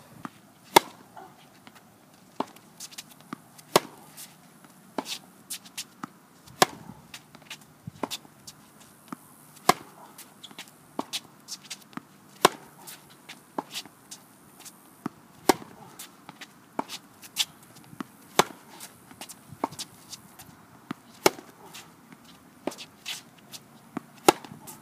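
Tennis rally on a hard court: a ball struck by racket strings, sharp pops about every second or so, some louder and some softer, with smaller ticks in between.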